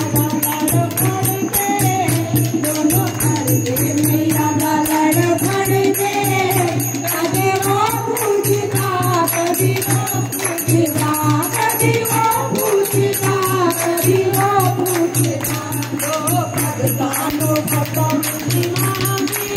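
Devotional group singing (a bhajan) with a hand-played dholak drum and jingling percussion keeping a steady beat.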